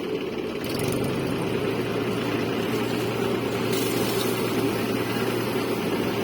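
An engine-driven construction machine running steadily at a constant pitch, getting slightly louder about a second in.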